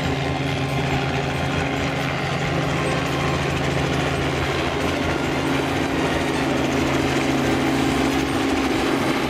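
Light helicopter flying slowly at low height: a steady drone of engine and rotors with a constant low hum.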